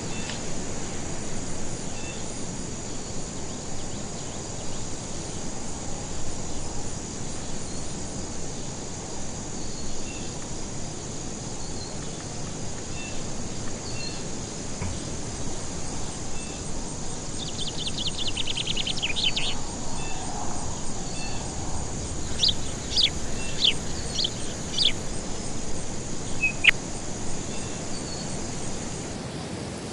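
Insects droning steadily on one high note, with a soft chirp repeating about every second and a half. Birds call over it: a rapid trill about two-thirds of the way through, then five sharp calls in quick succession and one more single sharp call. The drone stops near the end.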